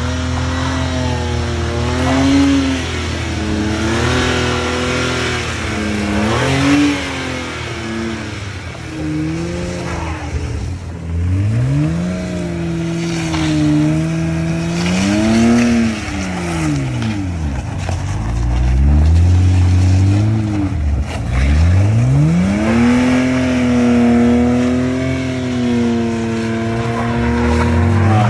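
BMW E46 engine being revved up and down repeatedly, its pitch swelling and falling back several times, with a couple of deep drops toward idle around the middle.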